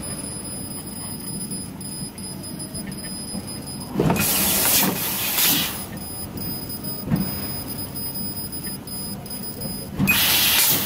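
Fiber 1530 fiber laser cutting machine running over sheet steel: a steady low machine hum with soft knocks every few seconds, broken by two loud hissing bursts from the cutting head, one about 4 s in lasting about two seconds and a shorter one near the end.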